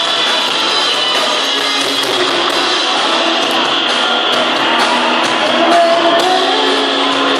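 Live rock band playing amplified on stage: electric guitars, bass guitar and drum kit.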